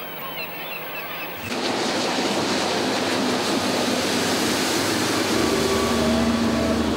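Gulls calling over the rush of a boat's bow wave. About a second and a half in, this gives way to a louder rush of water and spray from a motorboat speeding past, with its engine tone rising slightly near the end.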